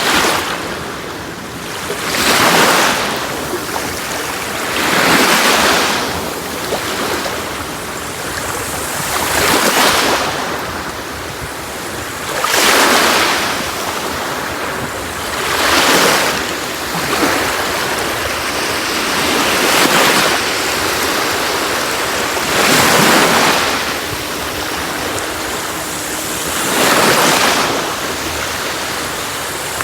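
Sea waves breaking on a beach: a steady wash of surf, with a wave surging in every three seconds or so.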